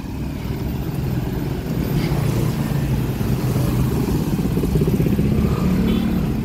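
Small motorcycle and scooter engines running in close traffic, a dense low engine hum with shifting pitch that grows a little louder in the second half as bikes pass.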